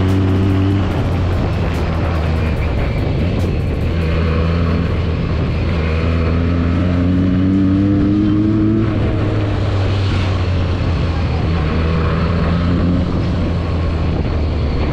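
Benelli TNT 300's parallel-twin engine running under way, heard from the rider's seat with wind noise. From about five seconds in the engine note climbs steadily as the bike accelerates, then falls back about nine seconds in.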